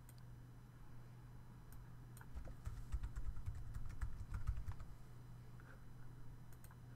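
Computer keyboard being typed on: a short run of quick key clicks from about two to five seconds in. A faint steady low hum lies underneath.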